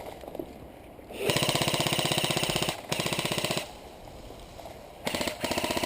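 Airsoft electric gun firing on full auto in rapid bursts: one long burst, a short one right after it, then two short bursts near the end.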